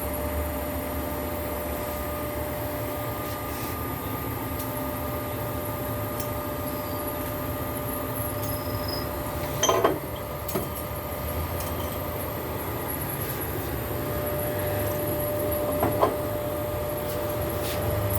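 A workshop machine hums steadily, with two sharp metallic clinks: one about ten seconds in and another a few seconds before the end.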